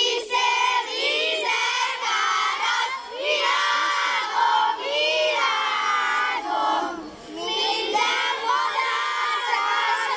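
A large group of young children singing together at the tops of their voices, half shouting, in long held and sliding notes with a couple of short breaks for breath.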